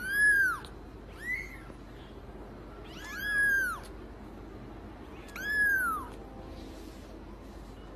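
Young white long-haired kitten meowing four times, short high calls that each rise and then fall in pitch; the second meow is the shortest and faintest.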